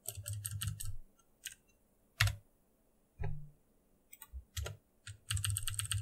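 Typing on a computer keyboard: a quick run of keystrokes, then scattered single presses, then another quick run near the end.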